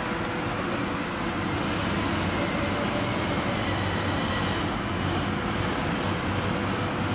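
Steady machinery noise of a factory hall: a constant running din with a faint steady tone and a low hum, unchanging throughout.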